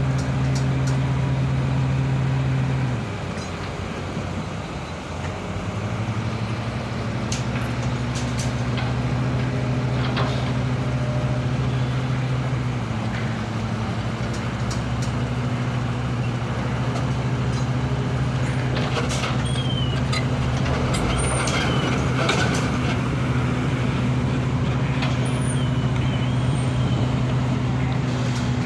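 Diesel engine of heavy road-construction machinery running steadily. Its note drops about three seconds in and picks up again a couple of seconds later, with scattered clicks and knocks over it.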